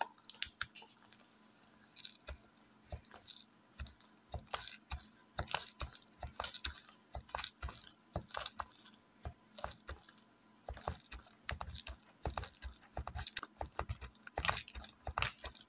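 Pump dispenser on a conditioner bottle pressed over and over, squirting conditioner into a plastic cup: many short clicks at an uneven pace.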